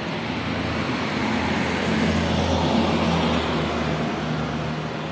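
A motor vehicle driving past on the road, its engine and tyre noise swelling to a peak about two to three seconds in and then fading away.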